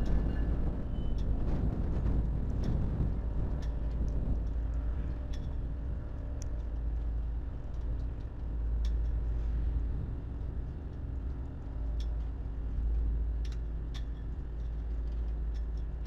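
Train rolling past: a steady low rumble with scattered sharp clicks from the wheels and cars.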